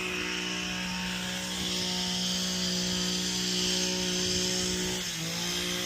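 A motor running with a steady droning hum, its pitch dipping briefly about five seconds in.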